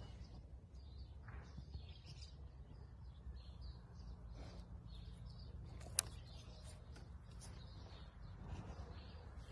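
Faint outdoor ambience: small birds chirping here and there over a steady low rumble, with one sharp click about six seconds in.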